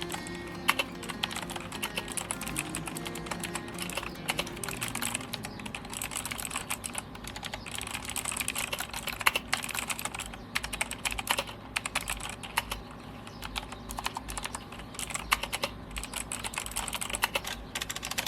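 Typing on a GAMDIAS GD-Hermes E3 60% mechanical keyboard with clicky blue switches: a dense, uneven stream of sharp key clicks.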